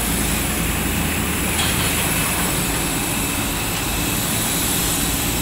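Steady roar of aircraft jet turbines on an airport apron, with a thin high whine held on top.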